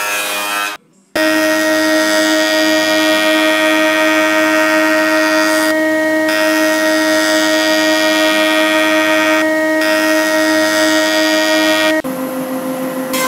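Jointer running with a loud, steady machine whine that starts abruptly about a second in after a brief silence. Near the end it switches suddenly to a JET thickness planer running with a lower steady whine.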